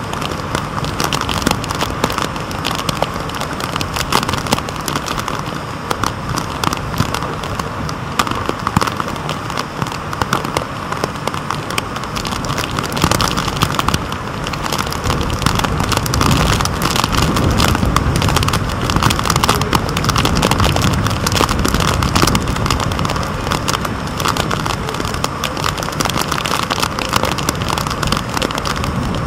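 Tropical-storm wind and rain beating on a waterproof camera housing: a dense crackling patter over a steady rush. The low rumble of the wind swells for several seconds about halfway through.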